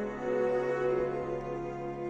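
String sextet of two violins, two violas and two cellos, bowing a sustained chord. The chord changes right at the start and is then held, swelling slightly.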